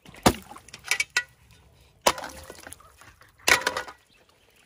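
Plastic gold-panning classifier sieves and gear being set down by a flexible plastic tub standing in shallow creek water: a few sharp knocks and clatters, the last a quick run of rattles.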